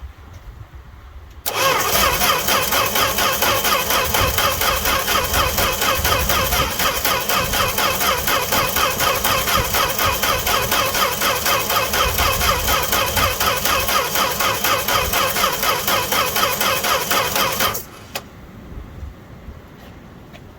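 A 1968 Fargo D100 pickup's engine being cranked over by its starter in a steady, even rhythm, without firing. Cranking begins about a second and a half in and stops abruptly near the end. It is a cold start with no choke and no pumping of the gas pedal.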